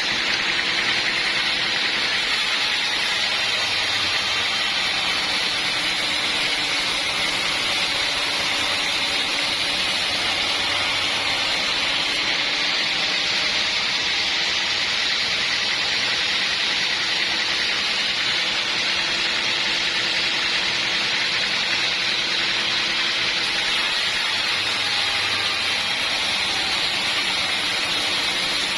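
Sawmill saw running through a log: a steady, unbroken hiss with a faint low motor hum underneath.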